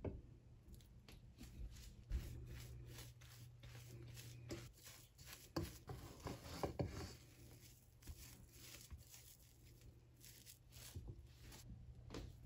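Wooden spatula stirring and mashing cooked yellow split mung beans in a pot: a run of short, soft scrapes and knocks against the pot, busiest in the middle, over a low hum in the first few seconds.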